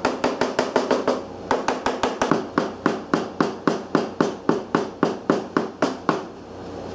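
Rapid, even tapping, about five sharp knocks a second, on a pattern set in a hardened sodium silicate sand mold: rapping the pattern to loosen it from the sand before it is drawn. The tapping pauses briefly about a second in and stops about six seconds in.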